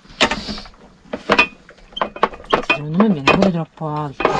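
Irregular sharp clicks and knocks of a small wooden dough roller and utensils against a nonstick frying pan as pizza dough is pressed out. A person's voice is heard for about a second around three seconds in.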